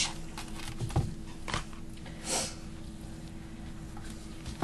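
Hands laying thin-sliced ham onto toast on a foil-lined baking sheet: a few short soft rustles and light taps, one sharper tap near the end, over a steady low hum.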